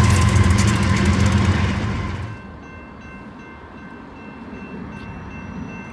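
BNSF GE Evolution Series (GEVO) diesel locomotives passing close by: a loud, deep engine rumble with rapid wheel clatter on the rails. It drops away abruptly a little over two seconds in, leaving a much quieter background with faint steady high tones.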